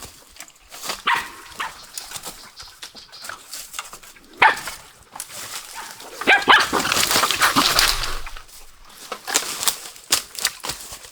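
A dog barking and whimpering, with short knocks and rustles around it and a louder, noisier stretch a little past the middle.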